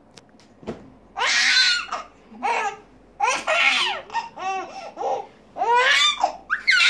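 Baby laughing and squealing in about five short, high bursts, starting about a second in.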